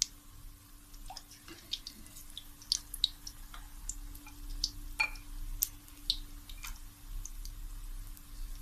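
Besan pakoras deep-frying in hot oil in a steel kadai, with scattered irregular crackles and pops over a faint steady hum.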